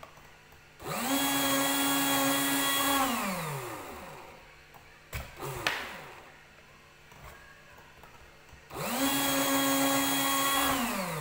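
Electric drill mounted in a homemade bench jig, switched on twice: each time its motor spins up, runs steadily for about two seconds, then winds down. A couple of sharp knocks come between the two runs.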